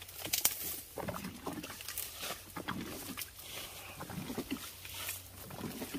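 Small, irregular splashes and drips in shallow muddy stream water.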